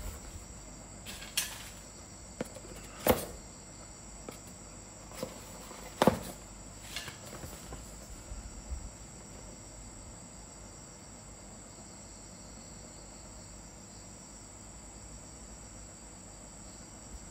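Hands handling a cardboard product box: a few sharp taps and knocks, the loudest about three and six seconds in, then a quiet stretch, over a steady high-pitched whine.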